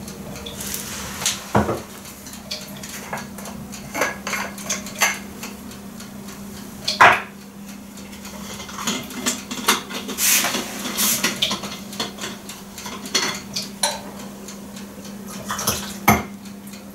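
A cup, a spoon and other dishes clinking and knocking in scattered short clinks as they are handled at a kitchen counter, the loudest about seven seconds in, over a steady low hum.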